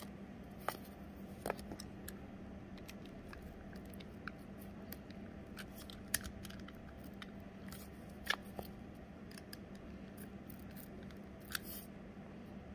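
Scattered small clicks, taps and scrapes of cardboard being pierced to make holes, with a few sharper clicks, over a steady low hum.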